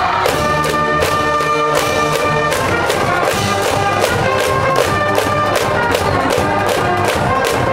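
Brass band in the cheering stand playing a cheer tune: trumpets and trombones carrying the melody over a steady drum beat.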